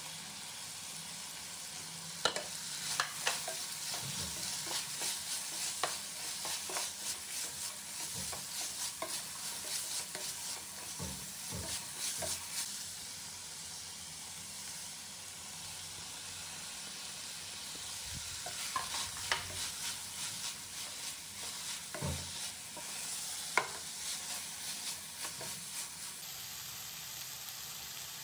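Chicken and shredded vegetables sizzling as they stir-fry in a non-stick pan, a steady hiss throughout. A wooden spatula scrapes and knocks against the pan in two spells of stirring, with a calmer stretch between them.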